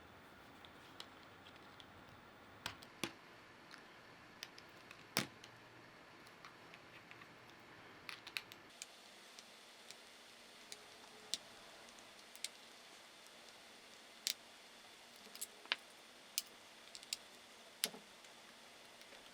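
Scattered sharp clicks and small taps, irregular and some louder than others, over a faint steady hiss: hands and small tools handling the plastic body of a Remington R5130 electric shaver.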